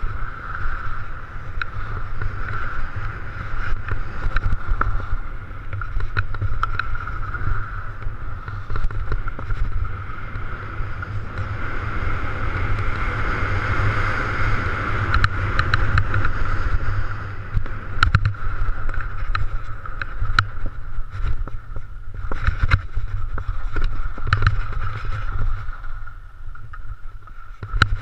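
Skis sliding and hissing over snow on a downhill run, with wind buffeting the helmet camera's microphone as a steady low rumble. Scattered sharp ticks, more frequent in the second half, come from the skis over uneven snow.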